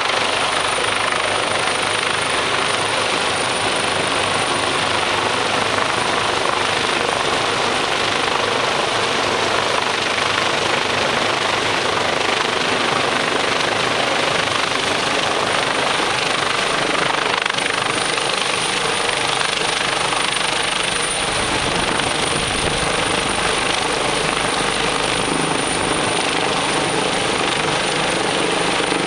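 Los Angeles Fire Department rescue helicopter hovering low overhead: steady loud rotor and turbine noise with a thin high whine. In the last several seconds its rotor downwash buffets the microphone with a low rumble.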